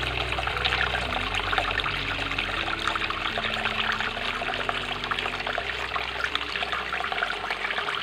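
Water from a small cement tabletop fountain splashing and trickling steadily as it falls off the ledges into its basin.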